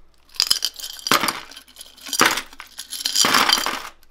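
A mass of metal costume jewelry (brooches, chains, beads) rattling and clinking against the inside of a glass vase as the vase is tipped and shaken out onto a tray, coming in four loud surges.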